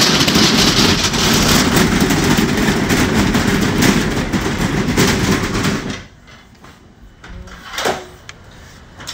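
Accordion hurricane shutter being pulled along its curved track, a loud, continuous rattling rush of the folding panels running on the track that stops suddenly about six seconds in. A few light knocks follow, one louder near the end.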